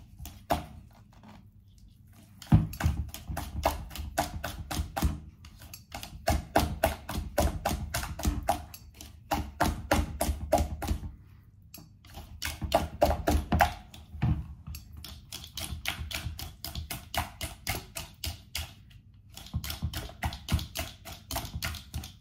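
A utensil beating pancake batter in a plastic mixing bowl: quick rhythmic taps and knocks against the bowl, about five a second, in runs broken by short pauses.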